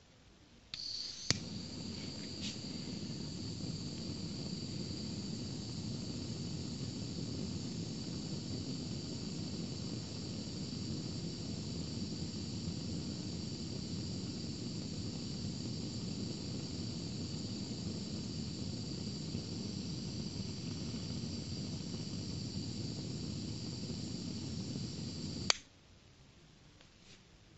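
Hot-air gun switched on with a click about a second in, running with a steady blowing rush and high whine, then switched off with a click near the end. It is preheating the ceramic glower of a Nernst lamp so the rod becomes conductive and glows.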